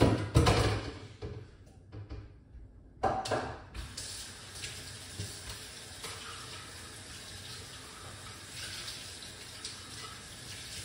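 Water running steadily from a tap into a sink, starting about four seconds in. It follows a few loud knocks and clatters in the first second and again at about three seconds.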